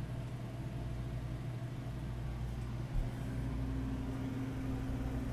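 Steady low mechanical hum of machinery aboard the boat, with a soft bump about halfway through and a higher steady tone that joins after it.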